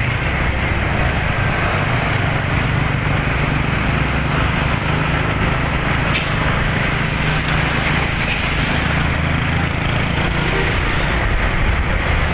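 A vehicle engine running steadily, with road and wind noise.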